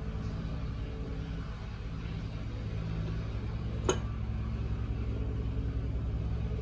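A steady low mechanical hum, with one sharp click about four seconds in.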